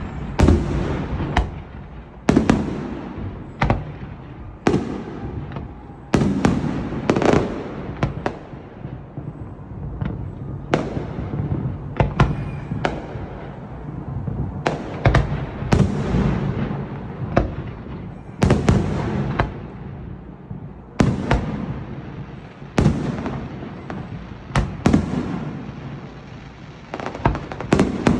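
Aerial fireworks bursting in a long barrage: sharp bangs at roughly one a second, irregularly spaced, each trailing off in a low rumble with crackling between.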